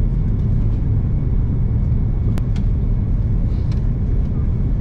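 Steady low rumble of an Airbus A330-300's engines and rushing air, heard inside the passenger cabin as the airliner descends to land. A brief click sounds about halfway through.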